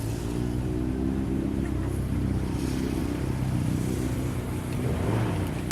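Motorcycle engine running at low revs, its pitch wavering slightly, with a small rise in revs about five seconds in.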